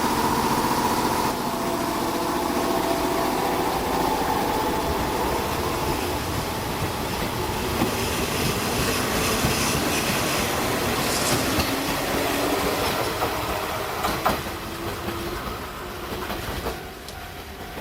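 Kintetsu Nagoya Line electric train running past, wheels clattering over the rails with a whine that slowly shifts in pitch, fading out near the end.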